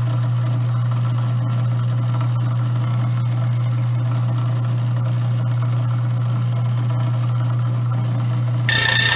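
Grindmaster 890-series coffee grinder motor running with a steady low hum while the burr-adjust screw is turned in. Near the end a loud, harsh chirping sets in, the sign that the burrs have just started to touch: the zero point for calibrating the grind.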